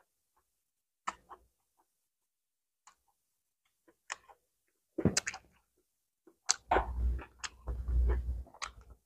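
Close-up eating sounds: a few soft mouth clicks while chewing, then from about five seconds in a louder spell of crinkling and rustling as a fresh lettuce-and-herb wrap is rolled and handled.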